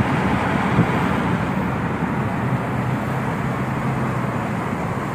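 Steady engine and road noise of a moving car, heard from inside the cabin: an even low drone.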